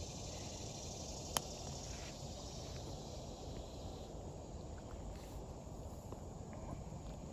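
Quiet outdoor background hiss, with one sharp click about a second and a half in.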